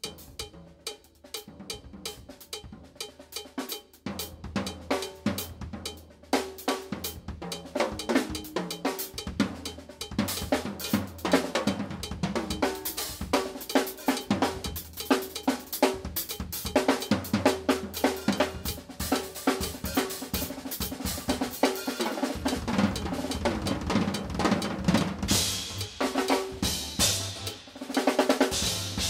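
Pearl drum kit played live: a busy groove of snare, bass drum, rimshots, hi-hat and cowbell that starts sparse and quiet and builds into dense playing, with cymbals ringing loudest near the end.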